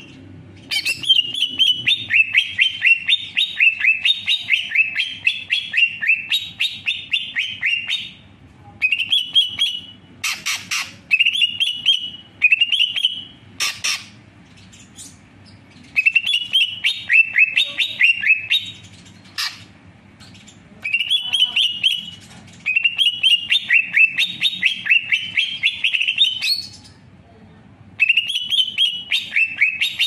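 Greater green leafbird singing: long runs of fast, repeated high notes in phrases of a few seconds, broken by short pauses. There are a couple of sharp clicks near the middle.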